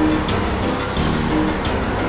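Background music with held notes and a steady beat, over the steady noise of motorway traffic.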